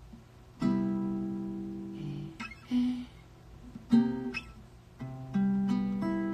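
Acoustic guitar strummed in separate chords with pauses between them, some chords left to ring. It is halting, someone trying out chords while searching for a song's chord progression they can't remember.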